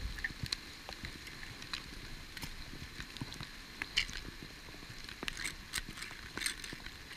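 Heavy rain falling, with close drops ticking irregularly.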